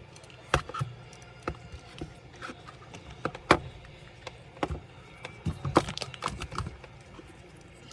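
Irregular clicks and light knocks from a Dell Latitude 3301 laptop and tools being handled during disassembly, the sharpest about three and a half seconds in and again near six seconds.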